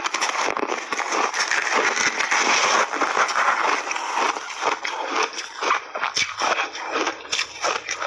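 Close-up crunching of frozen berry-flavoured shaved ice coated in milk powder, bitten and chewed in big bites. It is a dense crackle for the first few seconds, then breaks into separate sharp crunches several times a second.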